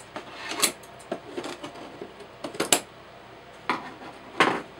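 Scissors cutting the packing tape on a cardboard kit box: a few sharp snips and scrapes, then cardboard rubbing as the lid is slid off near the end.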